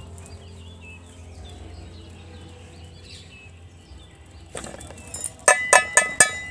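Steel bowl knocking against a metal pot of rice: about five sharp, ringing clinks near the end, over a faint background with bird chirps.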